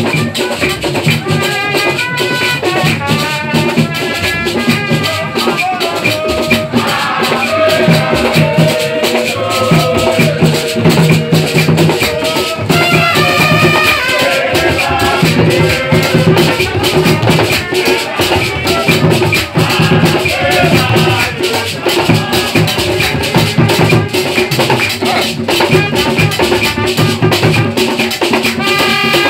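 Live drum ensemble: several hand-played barrel drums beaten in a dense, steady rhythm with shakers rattling along and voices singing over it.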